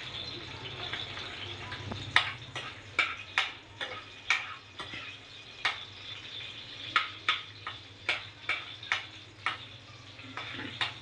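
Green chillies frying in hot oil in a metal kadai, a low steady sizzle, while a metal spoon stirs them and clinks and scrapes against the pan. The clinks start about two seconds in and come irregularly, about two a second.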